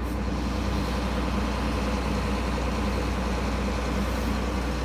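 Large diesel engine running steadily at an even speed, a low constant drone.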